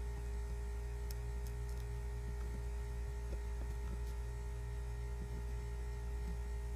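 Steady electrical mains hum with a few faint small clicks, the loudest a little after one second and around four seconds in.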